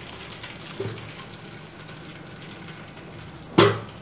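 Cooked rice and hot water being poured from a steel pot into a steel strainer, the water running and draining through the holes in a steady hiss. A small knock about a second in and a sharp, louder knock near the end.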